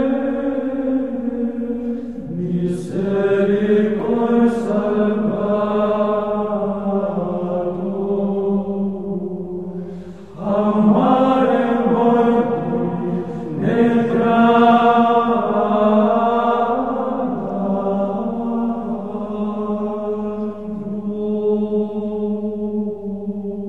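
Chanted vocal music: voices singing slow phrases of long held notes, with a brief break about ten seconds in before a louder phrase begins.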